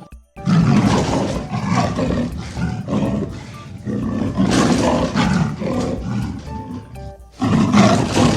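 A big cat roaring in repeated loud bouts over soft background music, with an abrupt cut just after the start and another about seven seconds in, where a fresh roar begins.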